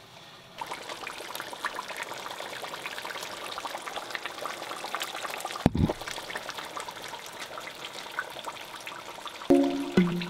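A pot of potato greens stewing in red palm oil on the stove, simmering with a steady crackle of small bubbles popping. There is one thump a little past halfway, and music comes in near the end.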